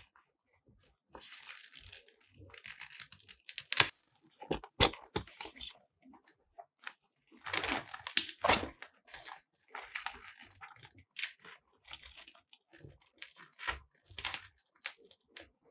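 Softbox's white fabric diffuser being handled: irregular rustling and crinkling of the cloth, with a number of sharp snaps and clicks.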